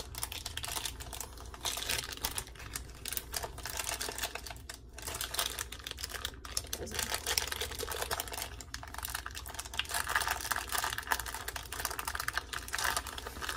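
Plastic bag of sliced deli cheese crinkling and rustling in the hands, a steady run of small crackles that grows busier near the end.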